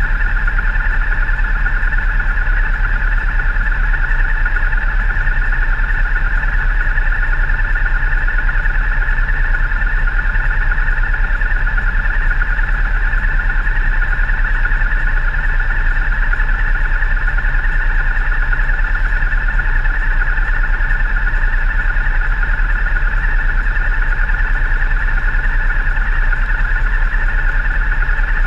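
Motorcycle engine idling steadily at a standstill, heard up close through the bike-mounted camera as an even low pulsing rumble with a strong steady mid-pitched drone over it.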